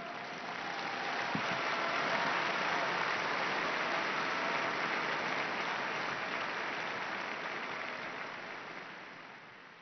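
A large crowd applauding, swelling over the first couple of seconds and slowly dying away near the end.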